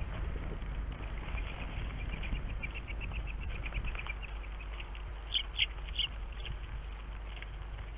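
Small birds chirping at a feeder: a quick run of short, high chirps, then a few louder calls about five to six seconds in, over a steady low rumble.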